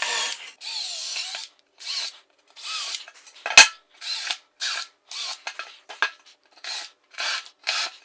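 A drill with a countersink bit countersinking screw holes in a wooden board, run in short bursts of about half a second each, one hole after another, with a sharp knock about three and a half seconds in.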